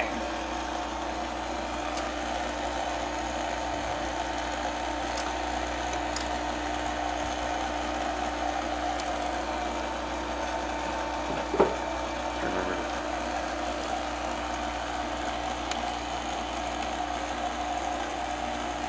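Battery-powered impeller oil-extractor pump running with a steady whirring hum, drawing the old oil out of an outboard engine through its dipstick tube. A single short knock about halfway through.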